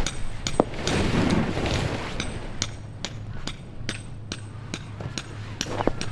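A run of irregular, sharp clicks and taps, several a second, over a low steady rumble.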